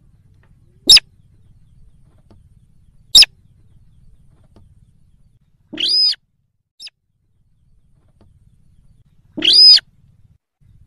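Slaty-breasted rail (sintar) calls on a bird-hunting lure recording: two very short, sharp high notes, followed by two longer pitched calls a few seconds apart.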